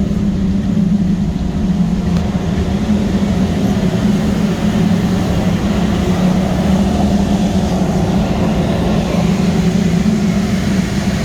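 Steam boilers firing, their burners running with a steady low hum and an even rushing noise above it.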